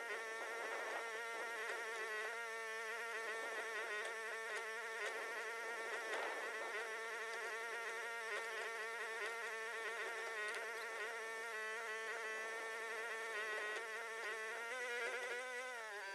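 Huayee HY14C mini excavator's engine running steadily at high speed with a buzzing tone. Its pitch dips just before the end as the engine slows.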